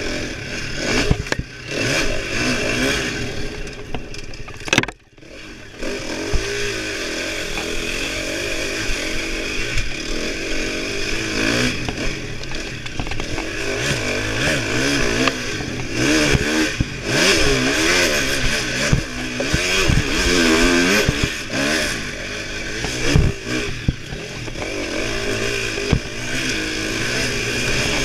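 KTM dirt bike engine revving up and down as the throttle is worked along a tight, rocky trail, with the clatter of the bike over stones, heard from a helmet-mounted camera. The sound drops away for a moment about five seconds in.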